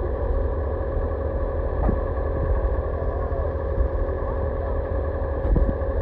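Engine of heavy construction equipment running steadily, with a low rumble and a constant whine, and a couple of faint knocks.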